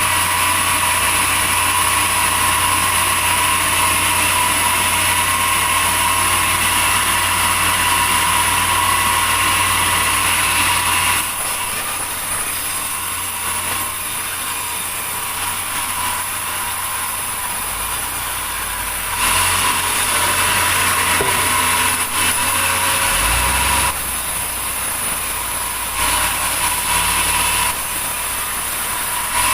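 Sawmill saw machinery running steadily, a low hum with a high whine, growing louder for stretches: for the first third and twice more briefly later on.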